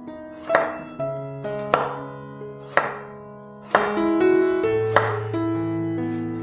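Instrumental background music of held notes that change pitch every second or so, with about six sharp knocks at roughly one-second intervals.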